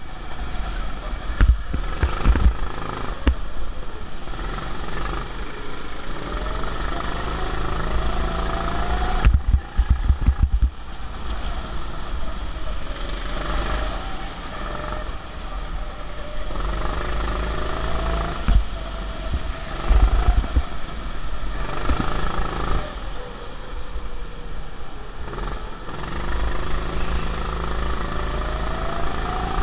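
Go-kart running at speed, heard from on board: a motor whine that rises in pitch several times as the kart accelerates, over heavy low rumble and buffeting on the microphone, with a few knocks about a third of the way in.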